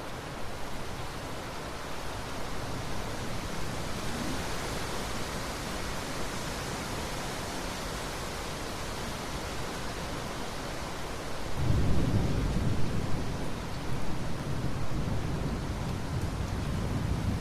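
Steady heavy rain hissing, with a roll of thunder rumbling in low about two-thirds of the way through and rolling on to the end.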